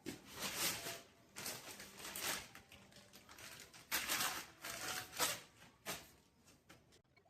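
Several rough rustling, scraping bursts, each up to about a second long, from cleanup work on metal machine parts.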